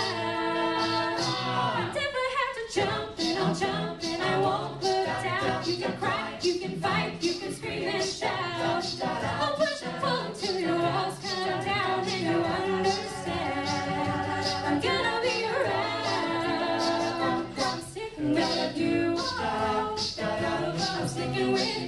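A mixed group of male and female voices singing a cappella in close harmony through handheld microphones, with sharp percussive hits keeping a beat under the chords.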